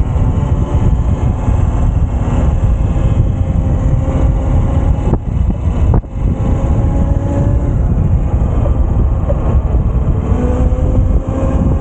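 Electric bike ridden over rough ground, wind buffeting the microphone in a steady heavy rumble, with a faint whine from the motor and a couple of brief knocks from bumps about halfway through.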